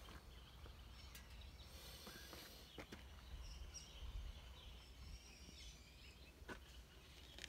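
Near silence: faint outdoor background with a low steady rumble, a few light clicks and some faint high chirps.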